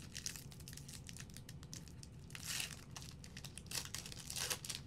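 1999 Pacific Aurora football trading cards handled by hand: cards sliding and flicking against one another with a papery crinkling, in quick clicks and two or three short swishes, the louder ones about halfway through and near the end.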